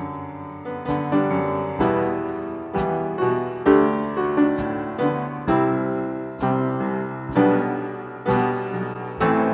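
Slow piano introduction to a worship song: chords struck about once a second, each left to ring and fade.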